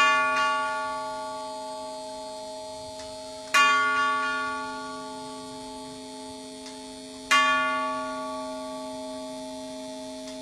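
Antique JW Benson grandfather clock striking on one of its tubular chime tubes: three strokes of the same note about three and a half seconds apart, each ringing on and fading slowly until the next. The slow, evenly spaced single strokes are the clock counting out the hour.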